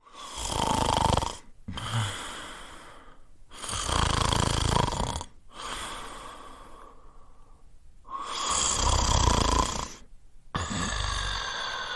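A person snoring steadily: three loud snores about four seconds apart, each followed by a quieter breath.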